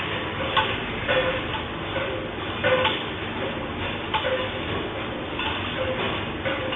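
A steady rumble with irregular rattling and clinking knocks, several of them ringing briefly, like loose things shaking.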